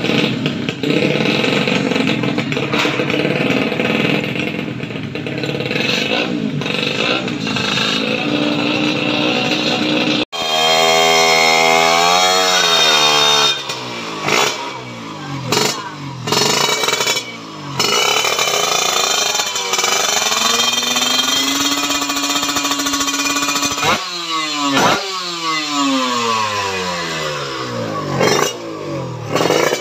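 Tuned Kawasaki Ninja motorcycle engine being revved hard. For the first ten seconds it is held at high revs. After an abrupt break come a series of sharp throttle blips, each pitch falling back quickly, with a lumpy idle between them.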